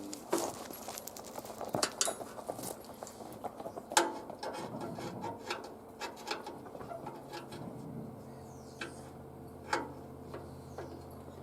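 Scattered clicks and knocks of hand work on parts and tools, the loudest a sharp knock about four seconds in and another near the end, with a faint steady hum joining about seven seconds in.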